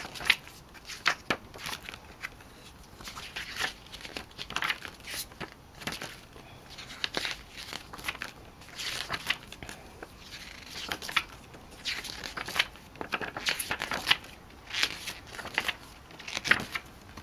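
Glossy paper pages of a CD photo booklet being turned and handled: a run of irregular rustles and crinkles.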